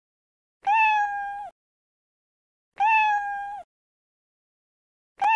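Domestic cat meowing: the same meow twice, about two seconds apart, each under a second long, rising a little at the start and then held level. A third identical meow begins right at the end.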